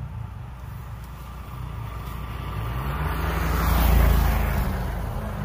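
A motor vehicle passing by, growing louder to its loudest about four seconds in and then fading, its engine note bending in pitch as it goes past.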